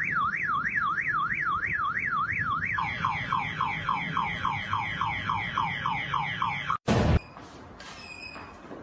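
Car alarm siren: a warbling tone that quickly rises and falls over and over, then switches to a run of rapid falling sweeps, and cuts off abruptly about seven seconds in.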